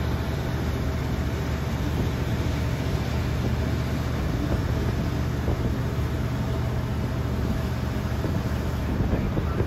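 Tour boat's engines running steadily underway: a constant low drone under an even rushing noise of water and air.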